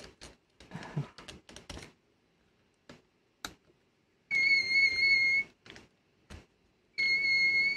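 Clicks and taps of plastic gears and parts being handled in a VHS deck mechanism, then the mechanism's small motor driving its gear train twice: about a second of steady high whine a little before the middle, and a shorter run near the end.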